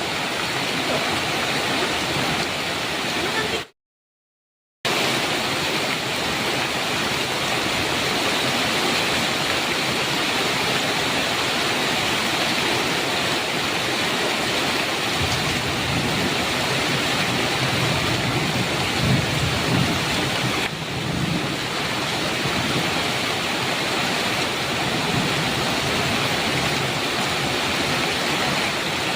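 Heavy rain falling steadily on a metal roof, with a low rumble of thunder about halfway through. The sound cuts out completely for about a second a few seconds in.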